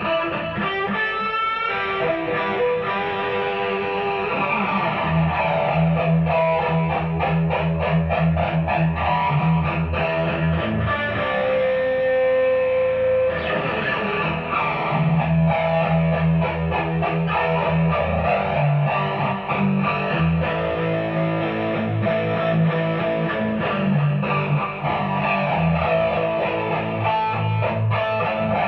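Electric guitar, a Mexican-made Fender Stratocaster played through a Marshall DSL40C valve combo amp, playing an instrumental piece with continuous notes and chords.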